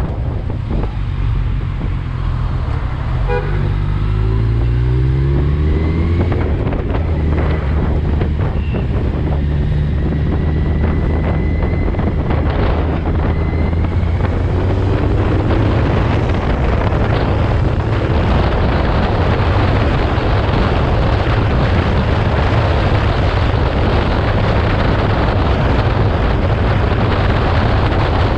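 Sport motorcycle's engine pulling up in pitch as it accelerates about three seconds in, then running at a steady cruise under a dense rush of wind over the microphone.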